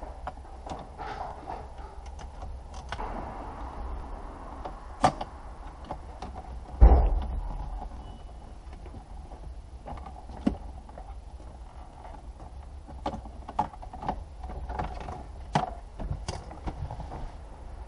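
Scattered clicks and knocks of parts being handled and moved behind a car's stripped dashboard, with one heavy thump about seven seconds in and a run of light clicks near the end.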